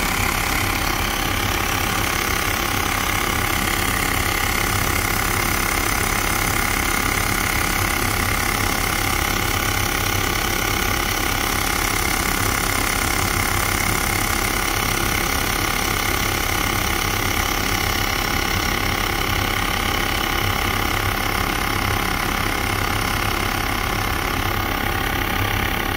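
Xiaomi Mi Portable Electric Air Pump's small compressor running steadily while it inflates a car tyre at about 2 bar. The drone cuts off suddenly at the end.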